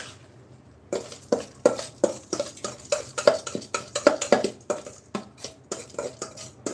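A steel bowl knocking against the rim of a frying pan as rice is scraped and shaken out of it by hand: quick metallic knocks with a short ring, about three a second, starting about a second in.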